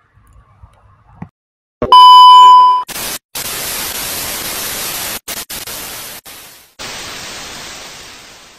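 Old-TV transition sound effect. A loud, steady test-pattern beep lasts about a second, then analog TV static hisses, cutting out briefly a few times and fading away near the end.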